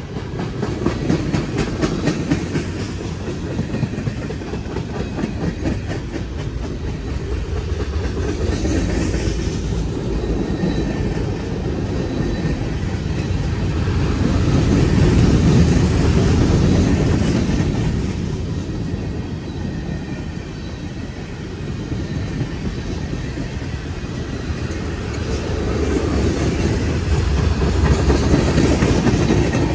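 Freight train cars (covered hoppers and tank cars) rolling past close by: a steady rumble with the clickety-clack of wheels over the rail joints, swelling louder a few times as the cars go by.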